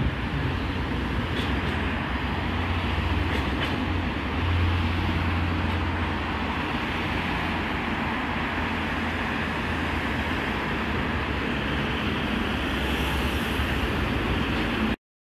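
Steady noise of road traffic passing on a busy multi-lane road, with a heavy low rumble; it cuts off suddenly near the end.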